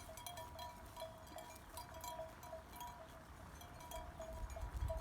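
Faint, irregular clinking of livestock bells, short ringing notes at two pitches.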